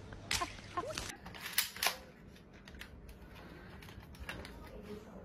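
Plastic toy pistol being handled and worked, giving a few sharp clicks in the first two seconds, then quieter handling.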